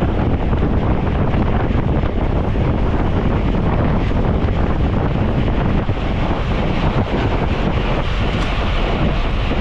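Heavy, steady wind rushing over the microphone of a camera carried on a bicycle racing at speed.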